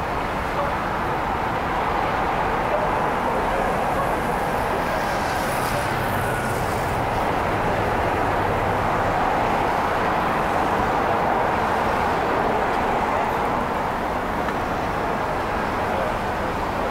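Steady city street traffic at a busy intersection, with a vehicle passing close by around the middle.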